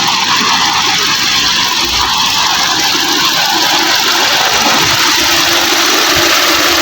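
Hyundai Elantra's engine idling steadily with the air conditioning switched on while refrigerant gas is being charged into its newly fitted AC system.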